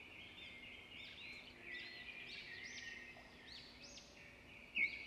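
Faint background birdsong: many small birds chirping and twittering in quick, short calls, a little louder near the end.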